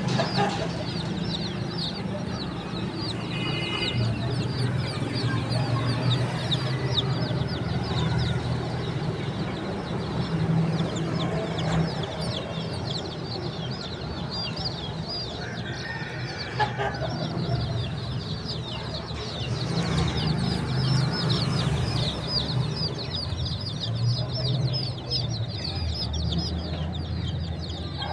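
A group of baby chicks peeping continuously: a dense stream of short, high, falling peeps over a steady low hum.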